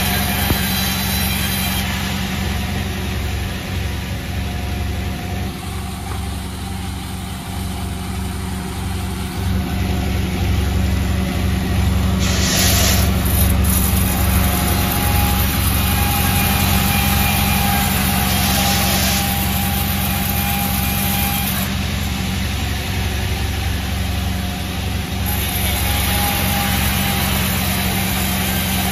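Sawmill machinery running steadily with a low, heavy engine hum, broken by two brief hissing bursts, one a little after twelve seconds in and one around eighteen seconds in.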